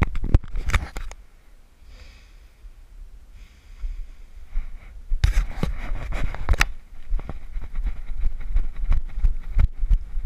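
Wind buffeting and handling rumble on a body-worn action camera's microphone as the wearer moves on foot, with clusters of sharp knocks or footfalls in the first second and again about halfway through. There is a quieter lull a couple of seconds in.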